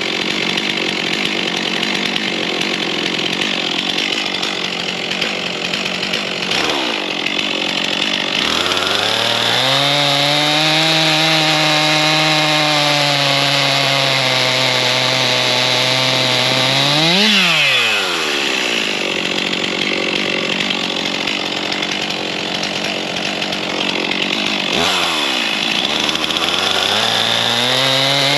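Two-stroke Stihl chainsaw cutting through an ash log, the engine running loaded with the chain chewing wood. Its pitch sags and picks up again a few times, and about two-thirds of the way through it climbs sharply and drops back.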